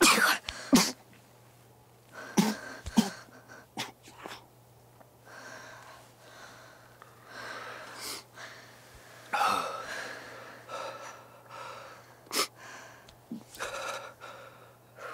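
A person breathing hard in irregular, gasping breaths, some catching sharply.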